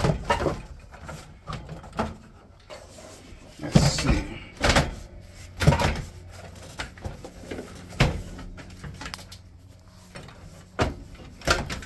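Knocks and clunks of a replacement glass stovetop cover and its frame being pushed and seated into an RV range, with about seven sharp knocks spread unevenly through.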